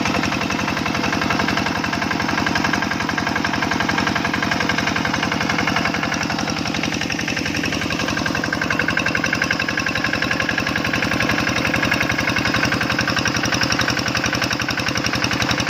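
Diesel engine running steadily under load, driving a 5-inch Niagara irrigation water pump, with a fast, even knocking from its firing and a steady hiss above it.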